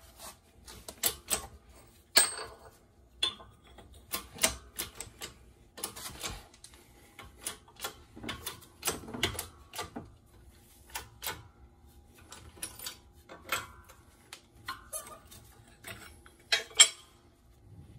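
Irregular sharp clicks and light metal taps, often a few close together then a short pause, as parts on a shop press are handled and nudged to center the speedo ring gear evenly on the differential.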